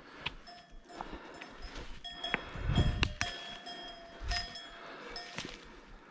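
Cowbells on nearby cows ringing irregularly, each clang leaving a lingering metallic ring, with a low thud about halfway through.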